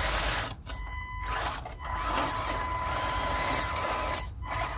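Small electric RC crawler's motor and gearbox whining at a steady pitch under load as the truck strains up a steep, slippery muddy bank, over a steady hiss.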